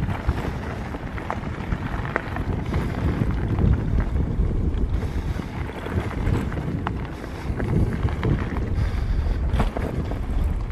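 Wind buffeting the microphone in a steady low rumble while an old Scott mountain bike rolls over a bumpy gravel-and-dirt path. The tyres crunch, and scattered light knocks and rattles come from the bike over the bumps.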